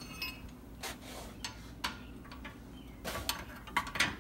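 Scattered metallic clicks and ticks of a wrench working the 21 mm bolt that holds the lower control arm to the frame, a cluster of clicks about three seconds in.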